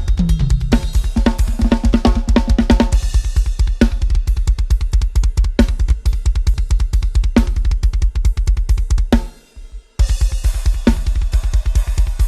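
Budget drum kit, multitrack-recorded and mixed, played at a fast pace with rapid, steady bass drum strokes under snare and cymbals, opening with a tom fill that runs down in pitch. A little before ten seconds in the kit stops for just under a second, then comes back in full.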